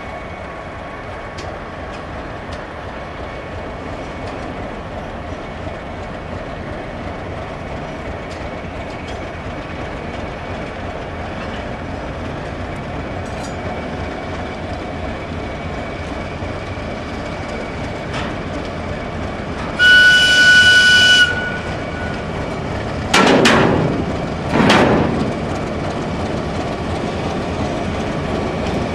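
TEM2 shunting diesel locomotive with its six-cylinder diesel engine running steadily as it hauls a train of tank cars slowly closer, the engine growing gradually louder, with a few faint wheel clicks. About twenty seconds in it sounds a high whistle for about a second and a half, and then come two short, loud blasts.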